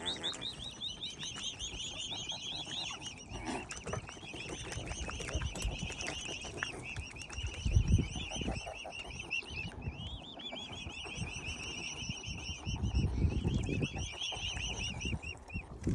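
Swan cygnets peeping continuously: a fast, unbroken stream of short high-pitched calls, with a couple of brief low rumbles around eight and thirteen seconds in.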